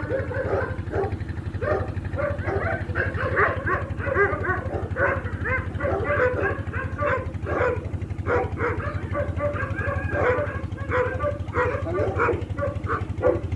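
Dogs barking and yipping over and over in quick succession, with a steady low hum underneath.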